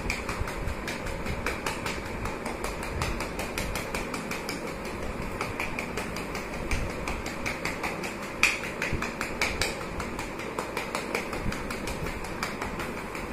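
Rapid, even taps of a gloved hand on a patient's back over a steady hum: chest percussion to loosen secretions in the lungs.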